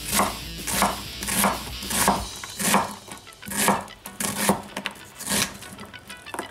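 Chef's knife dicing a large onion on a wooden cutting board: roughly a dozen cuts, about one every half second, each blade stroke passing through the onion and meeting the board.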